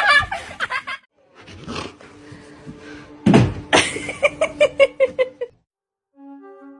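A dog vocalizing in a quick run of short pitched calls. Brass music starts near the end.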